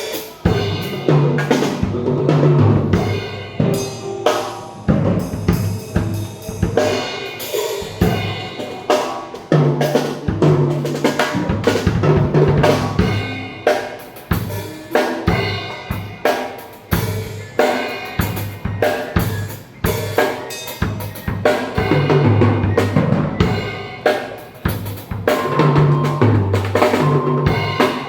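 Pearl Roadshow acoustic drum kit being played continuously in a sound check: bass drum, snare and cymbals struck without pause in a steady groove with fills.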